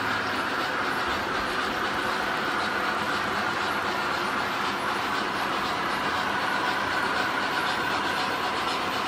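Several electric model trains running at once on a layout, a steady, even running noise of metal wheels and motors on the track.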